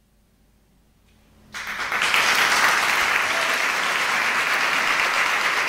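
About a second and a half of near silence, then audience applause starts abruptly and goes on steadily.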